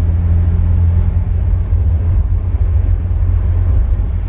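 Holden Gemini's four-cylinder engine and road noise heard inside the cabin, a steady low drone while cruising at highway speed.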